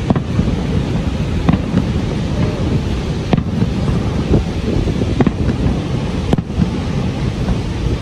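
Fireworks shells bursting in several sharp bangs a second or two apart, over a steady low rush from the waterfall.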